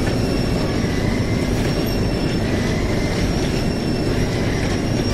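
Several belt-conveyor bag truck loaders running at once: a steady mechanical rumble of belts travelling over rollers, with a thin high whine over it.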